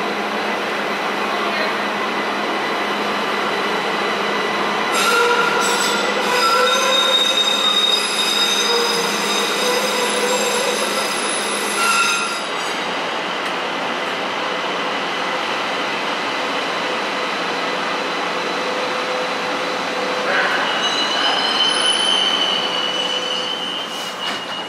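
Light rail train running through an underground station and tunnel, a steady rumble with high-pitched wheel squeal setting in about five seconds in and stopping about seven seconds later. A second spell of wheel squeal comes near the end.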